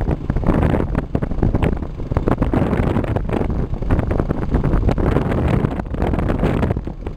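Wind buffeting the microphone on a moving vehicle: a loud, uneven rushing noise with frequent gusts, with the vehicle's running noise underneath.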